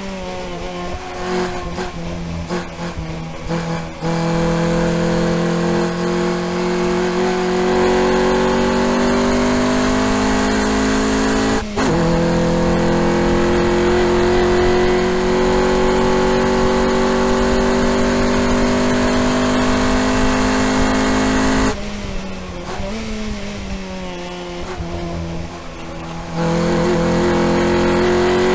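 Honda Civic EG's B18B1 1.8-litre four-cylinder engine through a header and aftermarket exhaust, heard from inside the cabin under hard acceleration on a race track. The pitch climbs steadily, drops briefly about 12 s in at an upshift, and climbs again. Around 22 s the throttle lifts and the engine goes quieter with falling pitch for a few seconds before it pulls hard again near the end.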